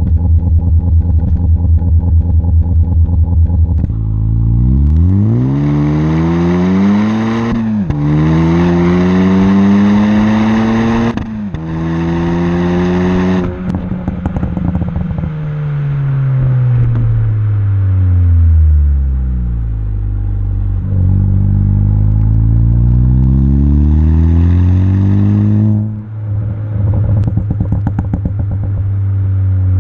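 Ford Focus ST exhaust through an MBRP cat-back with a Stratified pops-and-crackles tune: idling with a steady pulse, then accelerating hard with two quick upshifts, lifting off so the revs fall with crackles and pops on the overrun. It pulls up through the revs again and crackles on a sharp lift-off near the end.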